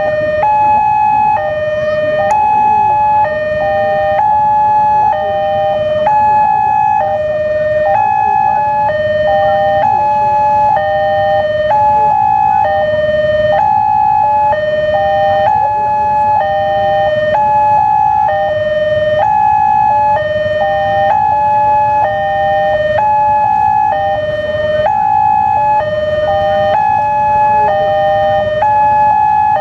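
Railway level-crossing alarm sounding continuously: an electronic two-tone warning that switches steadily between a high and a low note, with two alarm patterns overlapping slightly out of step. It signals that the barriers are closed for an approaching train.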